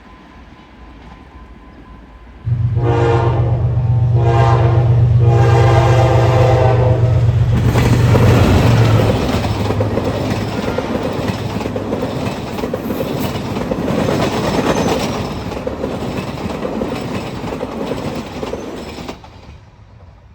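A diesel locomotive of an Egyptian railways train passing close. The engine drone starts suddenly and the horn sounds in a few blasts, then the wagons run by with a steady rush of wheel noise that cuts off suddenly near the end.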